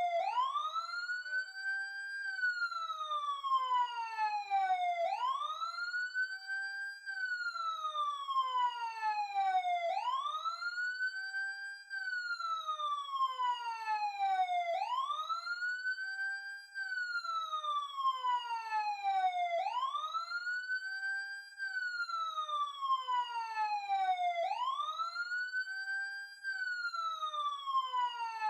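Emergency siren wailing. Each cycle sweeps up in pitch over about two seconds and then glides slowly back down over about three, repeating about every five seconds.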